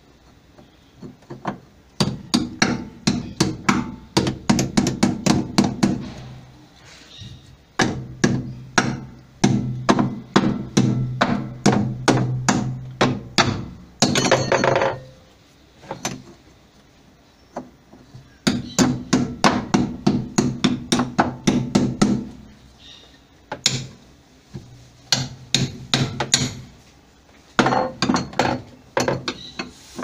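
Hammer blows striking a tool on the wash basket's centre hub of an LG top-loading washer, to loosen the basket for removal. The blows come in runs of several strikes a second with short pauses between runs, and a low ringing builds under the faster runs.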